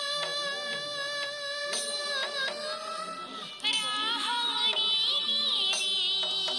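Music: a high melody of long held notes, wavering about four seconds in, over light percussion strikes.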